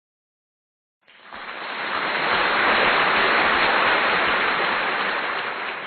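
Dead silence, then about a second in a steady rushing noise like running water or surf fades in, holds, and begins to taper off near the end.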